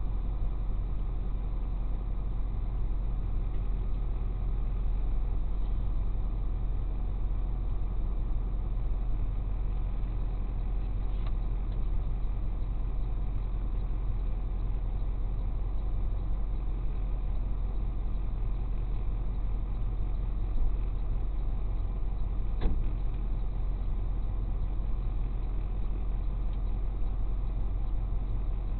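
Tow truck's engine idling steadily, with two faint knocks over it, about eleven and twenty-three seconds in.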